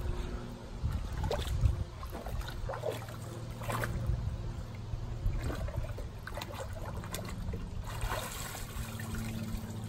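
Lake water splashing and sloshing as a dog wades through the shallows, with irregular louder splashes. A low steady hum runs underneath.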